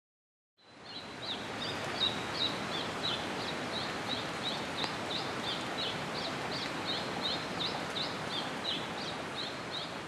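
Forest ambience fading in about half a second in: a steady hiss with a high, short chirp repeated about three times a second and a faint steady high whine beneath it.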